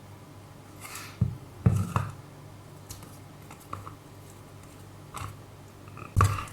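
Irregular clicks and knocks from handling a plastic container and scooping slime into it, with a few louder knocks around a second, two seconds and six seconds in, over a low steady hum.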